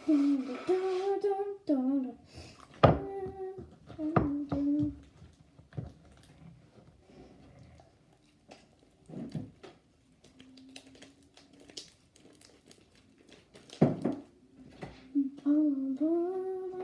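A child humming short wordless phrases, with scattered clicks and knocks from things being handled between them.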